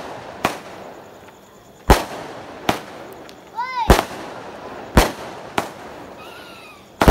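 Aerial fireworks shells bursting overhead: about seven sharp bangs in seven seconds, coming at uneven intervals.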